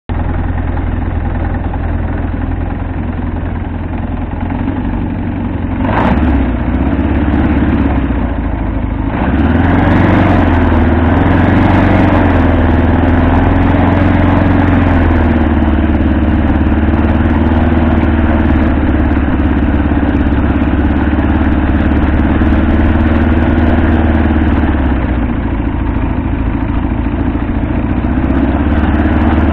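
Fanagoria microlight trike's engine and pusher propeller running as it taxis on grass: a steady hum that swells briefly about six seconds in, then grows louder and wanders in pitch from about nine seconds in before settling into an even run.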